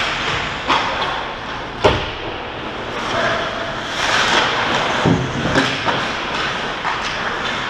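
Ice hockey play at the net: skates scraping on the ice, with the clack of sticks and puck, and a sharp hard hit about two seconds in. A few low thumps come around five seconds in as players crowd the crease.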